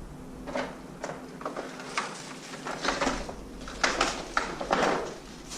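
Irregular crunching and rustling footsteps picking a way over debris, about a dozen uneven steps and scrapes.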